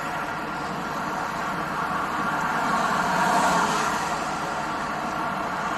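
Semi truck's diesel engine idling steadily at about 600 rpm, heard from inside the cab. The engine had been running hot and is suspected of leaking coolant; it has just had its coolant topped up.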